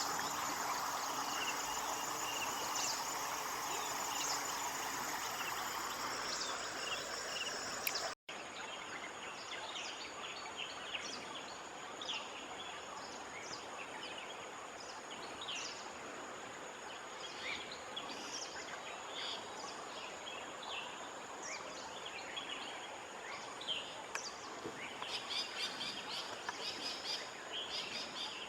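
Outdoor rural ambience: many small birds chirping in short calls over a steady high insect drone and a hiss. There is a rushing noise in the first few seconds, and the sound cuts out for an instant about eight seconds in.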